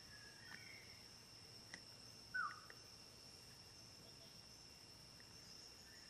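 Faint steady high-pitched insect drone, with a few soft bird chirps and one short, louder bird call about two and a half seconds in.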